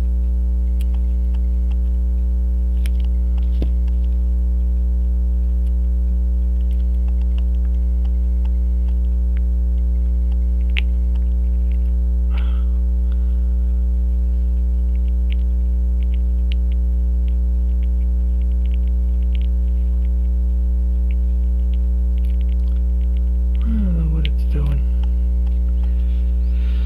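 Loud, steady electrical mains hum with a ladder of overtones, over faint scattered tiny clicks of tweezers and tools working on a small watch movement.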